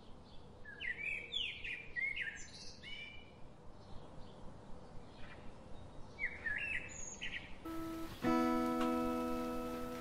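Small birds chirping in short, repeated rising and falling calls. About eight seconds in, a single acoustic guitar chord is struck and left ringing, slowly fading.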